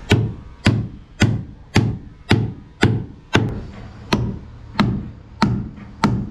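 Hammer blows driving nails into wooden deck planking: a steady run of sharp strikes, nearly two a second.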